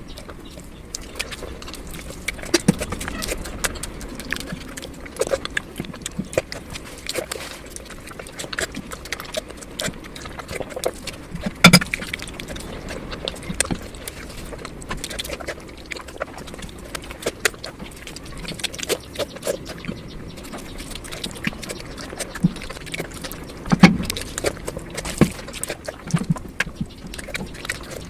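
Close-miked eating sounds of mutton fat curry: a dense, irregular run of wet chewing clicks and mouth smacks, with two much louder smacks about twelve and twenty-four seconds in.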